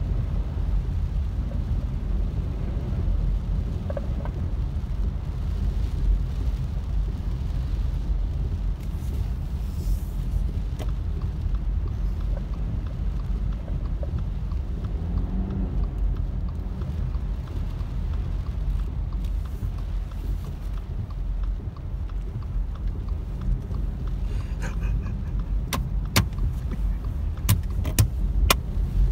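Car driving on a rain-soaked road, heard from inside the cabin: a steady low rumble of road and tyre noise with rain. A few sharp clicks come near the end.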